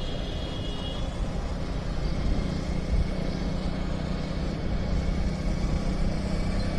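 Motorcycle engine running steadily at cruising speed, heard from the rider's seat under a rough, low rumble of road noise.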